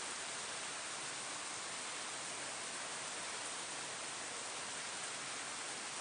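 Steady rain falling on leaves, a dense, even hiss with no single drops standing out.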